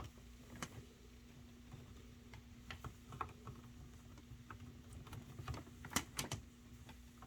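Irregular light plastic clicks and taps from handling an Ethernet cable plug and a USB Ethernet adapter, with a sharper cluster of clicks about six seconds in. A faint steady hum runs underneath.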